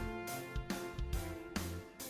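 Background music with a steady beat: held notes over a regular pulse about twice a second.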